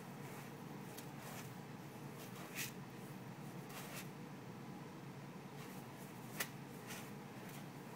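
A ferret digging in a tub of dry long-grain rice: the grains rustle and scatter in short scratchy rushes as he paws and burrows, the sharpest about two and a half and six and a half seconds in.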